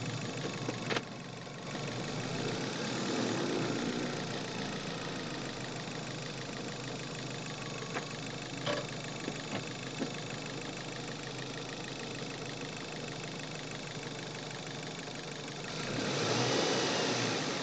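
Manual Chevrolet's engine running steadily near idle, heard from the engine bay, with a few sharp clicks about a second in and around the middle. The engine gets louder near the end.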